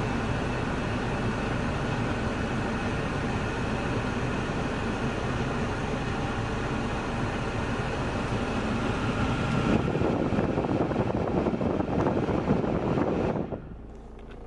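Steady road and engine noise inside the cabin of a moving GM Daewoo Winstorm SUV. It grows louder about ten seconds in, then falls away sharply shortly before the end.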